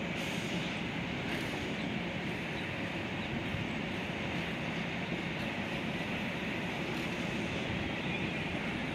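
Long Island Rail Road electric commuter train rolling across a bridge, a steady, unbroken rumble and hiss of wheels on rail.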